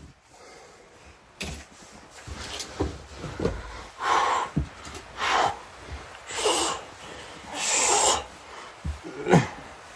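A person breathing hard, with four forceful, breathy snort-like exhales about a second apart in the middle, and a few short falling sounds, the loudest one near the end.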